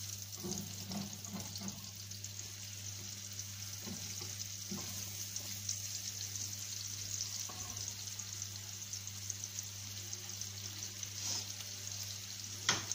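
Chopped onions sizzling in hot oil in a frying pan, stirred with a spatula over the first few seconds. A single sharp knock comes near the end.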